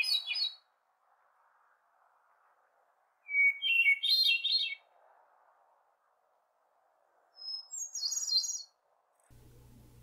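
Hermit thrush singing: separate phrases a few seconds apart, each opening on a long clear note and breaking into a quick run of higher notes, with the last phrase pitched higher than the one before.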